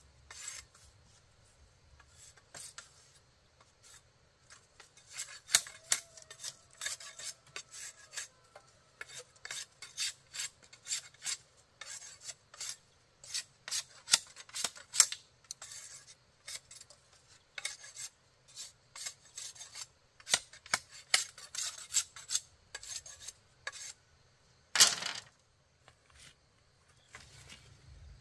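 A blade scraping bamboo in short, irregular strokes, with one louder, longer stroke near the end.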